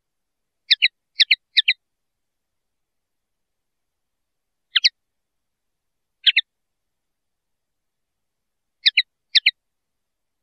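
Common linnet giving short, high double chirps: a quick run of three about a second in, then single ones and pairs a second or more apart.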